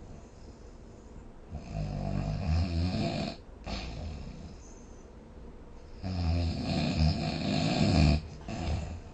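A sleeping person snoring: two long, low, rattling snores, one about two seconds in and one about six seconds in, with quiet breathing between them.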